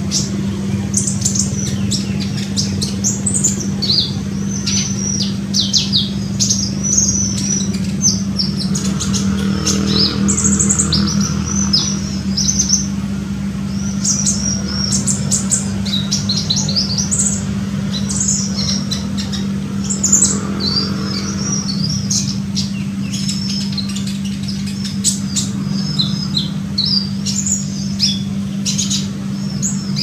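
Olive-backed sunbird calling: a rapid, continuous run of high, sharp chirps, many notes sliding downward, over a steady low hum.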